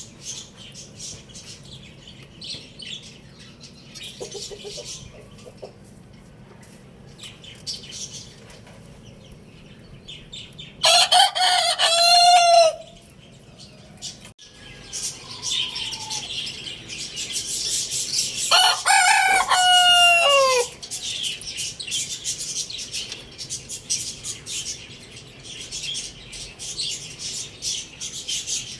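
A rooster crows twice, loudly, once about 11 seconds in and again about 19 seconds in, the second crow dropping in pitch at its end. Between and under the crows, other birds keep up quick high chirping and clucking.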